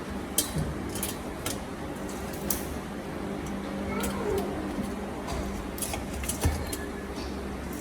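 Scattered light clicks and taps as shrimp are laid by hand into a cooking pot, over a steady low hum.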